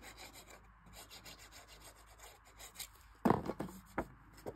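Nozzle of a liquid glue bottle rubbing along a strip of cardstock as glue is laid on, a faint, evenly repeated scratchy rubbing. About three seconds in comes a louder rustle of cardstock pages being picked up and handled, then a light knock.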